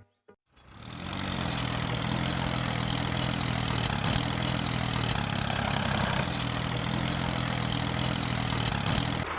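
Engine idling steadily with an even hum, fading in over the first second and cutting off abruptly near the end.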